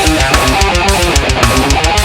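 Thrash metal riff on distorted electric guitar, with fast changing notes over an even low chugging pulse of about eight beats a second.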